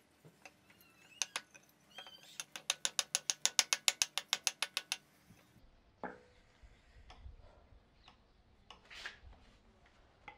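A rapid, even run of sharp clicks, about six a second for some three seconds, swelling then fading. After it come a few single knocks and a short scrape of a hatchet working a wooden blank on a wooden block.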